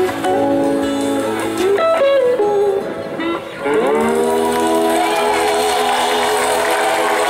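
Live blues-rock band with electric guitar playing lines with sliding, bending notes, then the band holding a long final chord from about four seconds in, its top notes wavering, as the song ends.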